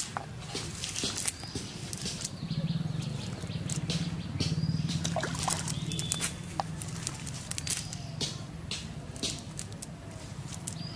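Wet cast net being shaken and handled on a muddy bank, with scattered irregular clicks, taps and drips as small fish are shaken loose from the mesh. A low steady hum runs underneath, and a few short high chirps come and go.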